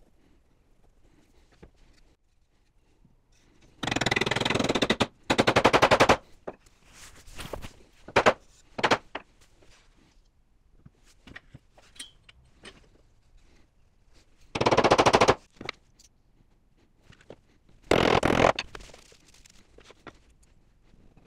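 Bursts of rapid mechanical rattling from hand-held workshop tool work, each about a second long: two close together about four and six seconds in, two more around fifteen and eighteen seconds, with scattered knocks and clatter between.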